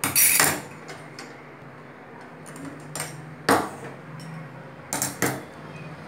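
Metal kitchen utensils knocking and clinking as they are handled: a handful of sharp knocks, the loudest right at the start and about three and a half seconds in, over a faint steady low hum.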